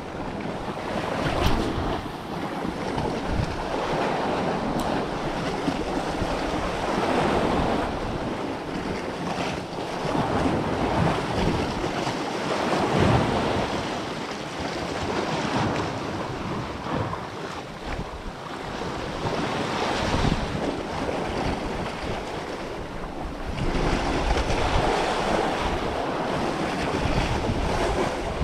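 Sea waves surging and washing against rocks, swelling and fading every few seconds, with wind buffeting the microphone.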